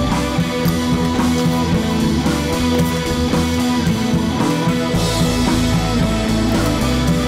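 Background rock music with electric guitar and a drum kit keeping a steady beat.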